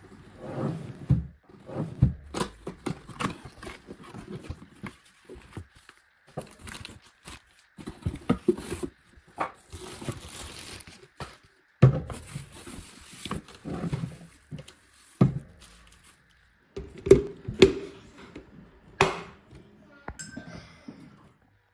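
Unboxing a blender: cardboard box and plastic wrapping rustling, with irregular knocks and clicks as the plastic jug is handled and set onto the motor base. A longer stretch of rustling comes about ten seconds in.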